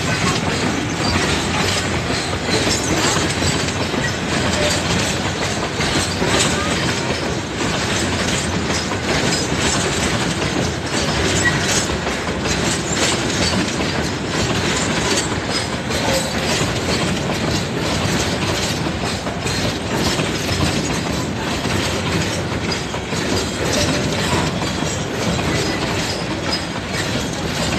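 Long freight train of BTO oil tank wagons rolling past, a steady rumble of wagons with many wheel clicks over the rail joints.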